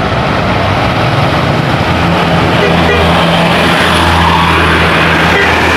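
Tour bus engine running close by with road and tyre noise; a steady low engine hum sets in about two seconds in.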